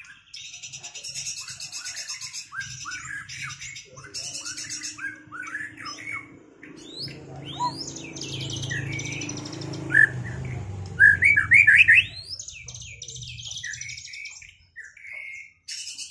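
White-rumped shamas singing in a rapid stream of varied whistled notes, quick rising sweeps and rattling trills, loudest in a run of sharp rising notes about two-thirds of the way through. A low rumble sits underneath through the middle of the song.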